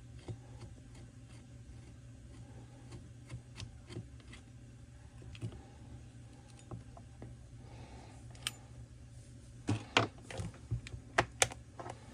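Scattered light clicks and clinks of hand tools and small metal chainsaw parts being handled during disassembly, with a cluster of louder sharp knocks and clacks about ten seconds in. A steady low hum runs underneath.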